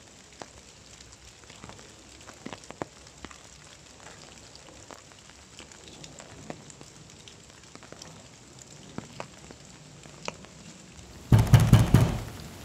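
Knocking on a wooden door: a quick run of loud knocks near the end. Before it, a faint crackling hiss with scattered soft ticks.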